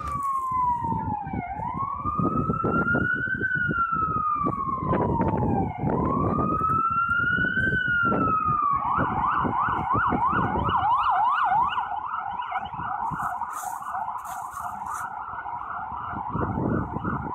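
Emergency vehicle siren sounding a slow wail that rises and falls about every four seconds, then about nine seconds in switching to a fast, rapidly repeating yelp, over a steady low rumble.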